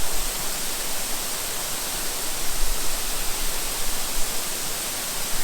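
Waterfall rushing steadily: an even wash of falling water, loud at the microphone.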